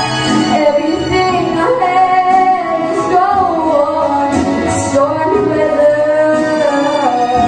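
A young girl singing a slow jazz ballad with long held, bending notes over a backing track with a bass line, amplified through a PA in a large hall.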